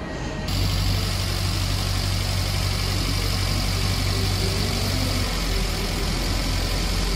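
Tofaş sedan's four-cylinder petrol engine idling steadily with the hood open; the sound begins abruptly about half a second in.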